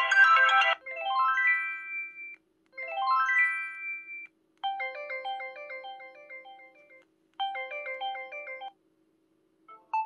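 ZTE Z222 flip phone's built-in ringtones previewing through its small speaker as the list is scrolled. A dense tune cuts off under a second in, then a quick rising run of bright notes plays twice, followed by a different short phrase played twice, with a short pause near the end.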